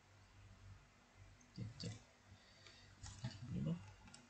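Computer mouse clicks, a few scattered single clicks, with a couple of faint low murmurs from a voice.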